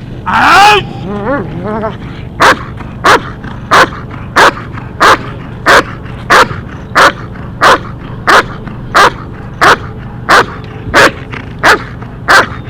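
A German Shepherd dog gives a high, rising whine, then a few short whines. About two seconds in it starts barking steadily and rhythmically, about three barks every two seconds, some sixteen barks in a row.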